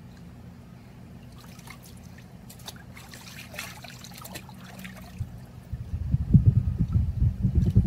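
Water splashing and trickling as a dog stands in a shallow foldable PVC pool and is handled in the water. Irregular low thumps and rumble take over in the last two seconds, louder than the water.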